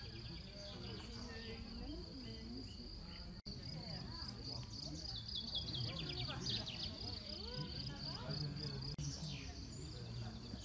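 Crickets chirping in the grass: a steady high-pitched trill with fast, even pulses, with faint voices murmuring in the distance.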